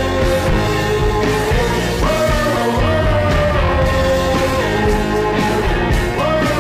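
Rock background music: a held melodic line stepping in pitch over a steady beat, with no words sung in this stretch.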